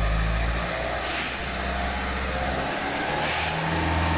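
Ford C-Max 1.6 TDCi diesel engine running with the throttle held open above idle, its speed shifting a little. Two brief hisses, about a second in and a little past three seconds.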